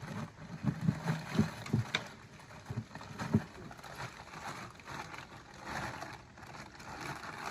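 Plastic bags of frozen food rustling and knocking as they are handled, with several sharp knocks in the first few seconds, then softer rustling.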